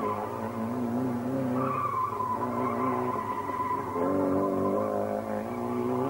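Mitsubishi Lancer rally car engine revving hard through a tarmac corner, with its tyres squealing for about two seconds as it slides, then the engine note picks up again as it accelerates away.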